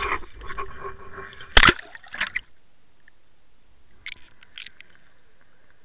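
A Water Wolf underwater camera on a fishing line, with its housing rustling through the air, hits the lake with one sharp splash about a second and a half in. Then it goes under, and the sound turns muffled, with a few light clicks near the end.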